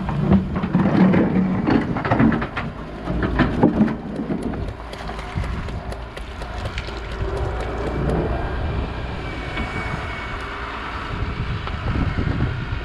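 Doosan wheeled excavator working: sharp clatter and scraping of stony soil against the bucket for the first few seconds, then the diesel engine and hydraulics run steadily as the bucket lifts and the machine swings round.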